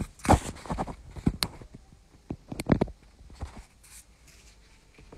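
Handling noise from a smartphone being touched and adjusted by hand: irregular knocks, taps and rubs against the phone, loudest in the first three seconds and fading to a few faint ticks.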